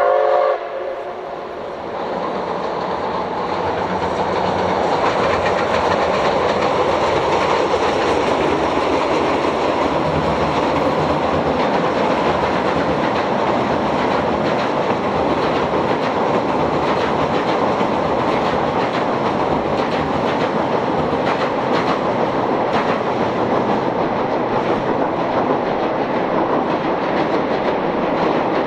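C57-class steam locomotive hauling a passenger train: a short steam-whistle note right at the start, then the train's running noise swells over the first few seconds and holds steady, with wheels clicking over the rail joints.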